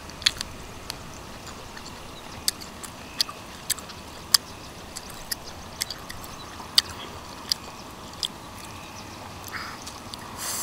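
Irregular sharp clicks of steamed clam shells knocking together and being pulled apart by hand while eating, more than a dozen of them, over a faint steady background.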